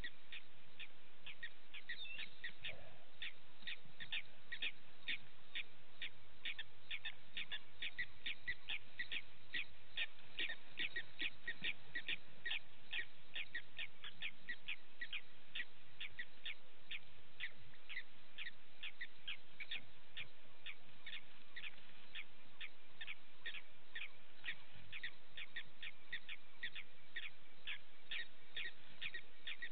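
Steady rhythmic chirping from a night-calling animal, about three short, high chirps a second, keeping an even pace throughout.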